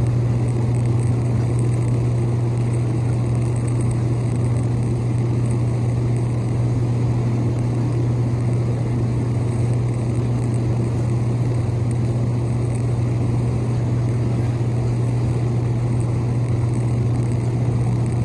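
Hot tub jets and their pump running: a steady low hum under an even rush of churning water, unchanging throughout.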